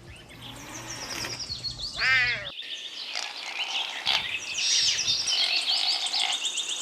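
A serval's high, wavering meow-like call about two seconds in. Then a background chorus of chirps and a rapid ticking trill, like birds and frogs calling.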